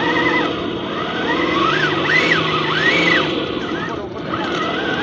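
Electric motor and gears of a radio-controlled off-road car whining, rising and falling in pitch several times as the throttle is worked.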